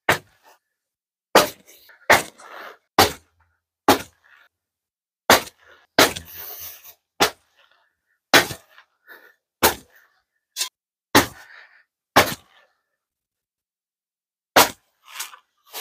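A digging tool chopping into the ground to dig a post hole: about fifteen sharp strikes, roughly one a second with a few longer pauses, some followed by a short rustle of loose dirt.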